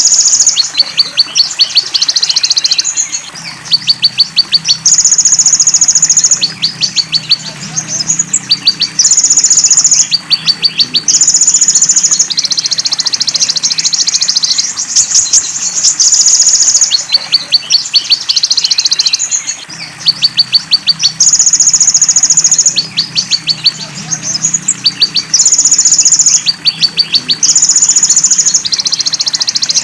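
High-pitched song of a konin (Van Hasselt's sunbird) on a bird-training track, mixed with filler songs of belalang emas and cililin. Runs of rapid dry ticks alternate with buzzy high trills, over and over.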